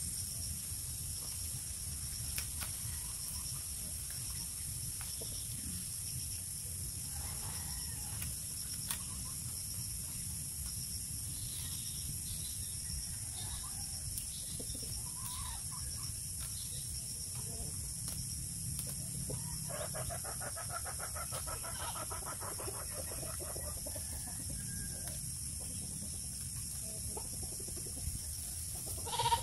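Chickens clucking in the background, with a rapid run of clucks about twenty seconds in, over a steady low rumble. Faint clicks of split-bamboo strips being woven by hand.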